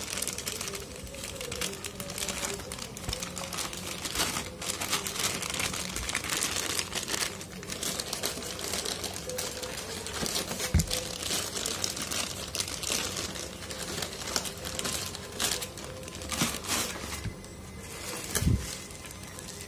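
Clear plastic wrapping crinkling and rustling as it is handled around a drone charger, with two dull thumps, one about halfway through and one near the end.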